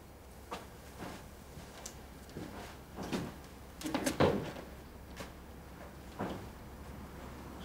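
Footsteps crossing a floor: a string of soft, uneven knocks, loudest about three to four seconds in.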